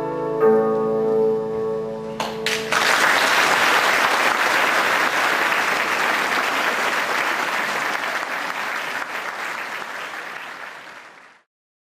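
A cimbalom band's final chord, cimbalom and violins held and ringing, ends about two and a half seconds in. Audience applause follows and fades out near the end.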